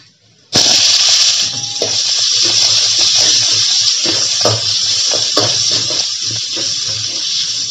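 Sliced onions dropped into hot oil in a metal kadai: a loud sizzle starts suddenly about half a second in and slowly eases, while a steel ladle scrapes and taps the pan as the onions are stirred.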